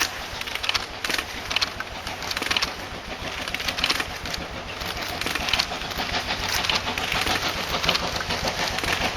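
Steam locomotive C11 171, a tank engine, working hard, with its exhaust beating in a regular chuff about twice a second over a steady hiss.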